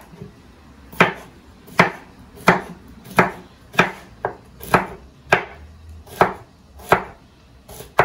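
A knife chopping on a cutting board in slow, even strokes, about one every 0.7 seconds, each a sharp knock.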